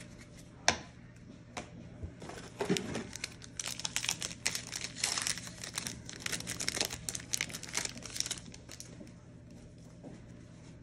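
Plastic wrapper of a Panini Contenders football card pack being torn open and crinkled, with dense crackling for several seconds in the middle. A single sharp click about a second in is the loudest sound.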